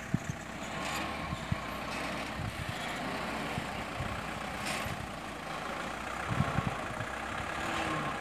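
A heavily loaded small dump truck's diesel engine running as the truck pulls slowly away across a dirt yard. A few brief low thumps come about a second and a half in and about six and a half seconds in.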